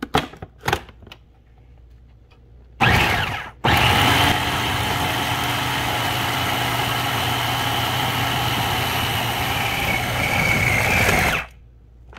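Food processor motor mixing a stiff seitan dough of vital wheat gluten and flour. After a few light clicks, it gives a short burst about three seconds in, then runs steadily with a low hum and a whine for about seven seconds before cutting off suddenly near the end.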